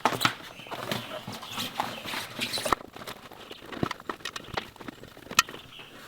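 Handling sounds as a rubber inner tube is worked into a backhoe tire and its valve stem is fitted through the steel rim: rubber rustling with scattered, irregular clicks and knocks.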